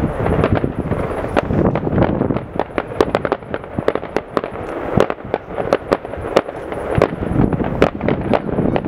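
Fireworks going off in quick succession: a dense, continuous run of bangs and crackling, with some bangs much louder than the rest.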